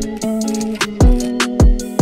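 Background music with a beat: deep kick drums and sharp snare-like hits over held melodic notes.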